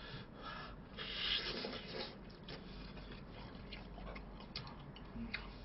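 Faint chewing of a mouthful of pizza, with scattered small mouth clicks and a slightly louder stretch about a second in.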